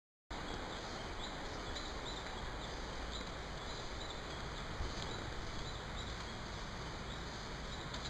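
Outdoor rainforest ambience: a steady hiss with a short, high animal chirp repeating about twice a second. There is one brief bump about five seconds in.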